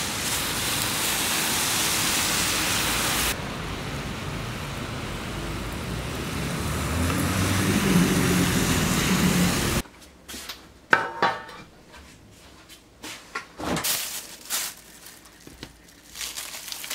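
Steady hiss of rain falling on a wet street, changing about three seconds in when the shot moves under an umbrella. It cuts off suddenly about ten seconds in, and small knocks and crinkles follow as plastic wrap is pulled off a slab of pork belly on a stainless steel tray.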